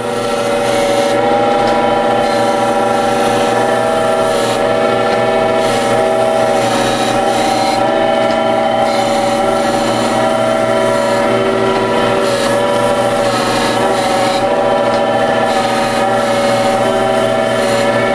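1935 Gallmeyer & Livingston No. 35 surface grinder grinding the steel face of a blacksmith anvil flat: a steady grinding hiss over the constant hum of the machine, fading in at the start.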